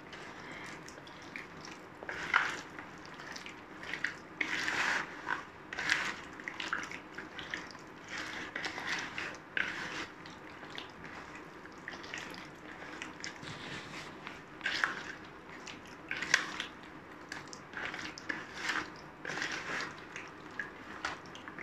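Chicken pieces being mixed by hand in a thick, wet marinade with cornflour: irregular squelching and sticky clicking over a faint steady hum.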